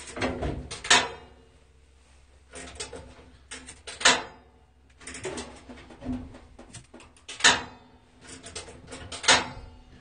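Scattered knocks and clatter of things being handled, with four sharper bangs that ring briefly, about one, four, seven and a half, and nine seconds in.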